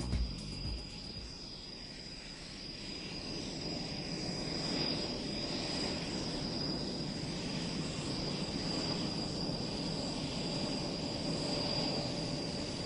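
Jet aircraft engine noise: a steady rush that builds over the first few seconds, then holds, with a thin high-pitched whine over it.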